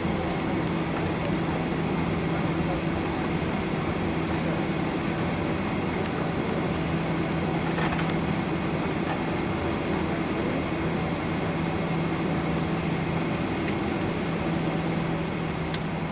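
Jet airliner cabin noise while taxiing after landing: engines at idle and the cabin air system give a steady low hum over an even hiss, with a faint click or rattle a couple of times.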